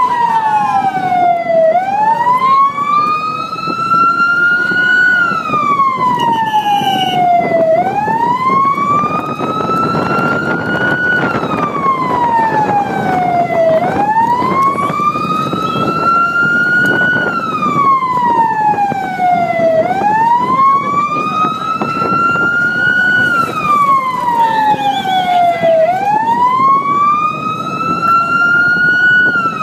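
Vehicle siren wailing, its pitch rising slowly and falling again about once every six seconds, over the steady rumble of a vehicle on the road.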